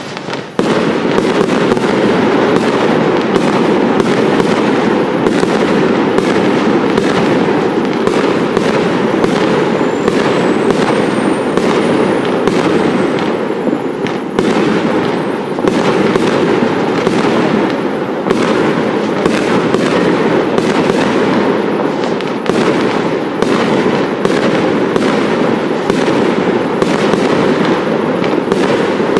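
Fireworks display: a dense, continuous run of crackling and popping reports. A faint whistle rises and falls about ten seconds in.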